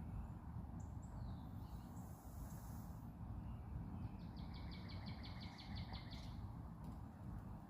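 Pileated woodpecker calling: a rapid, even series of about fourteen notes lasting a little over two seconds, over a low steady background rumble with faint chirps from other birds.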